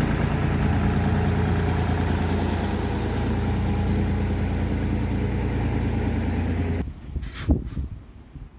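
An engine idling with a steady low drone. It cuts off abruptly about seven seconds in, leaving a few light knocks.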